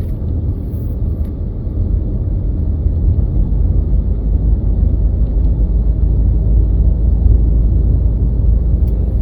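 Steady low rumble of engine and road noise heard from inside a moving minivan, slowly getting louder as the van picks up speed.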